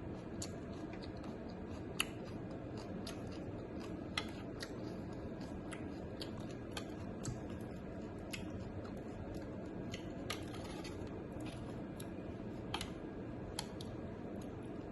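Close-up eating sounds: irregular crisp crunches and mouth clicks from chewing bok mi, over a steady low hiss.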